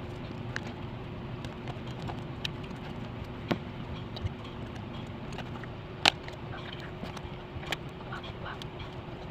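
Scattered small clicks and taps of cards and packaging being handled while unboxing, the sharpest about six seconds in, over a steady low background hum.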